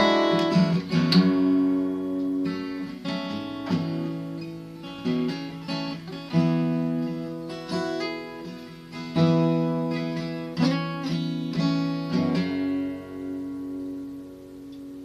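Acoustic guitar playing the song's closing chords, picked and strummed, then a final chord that rings out and slowly fades.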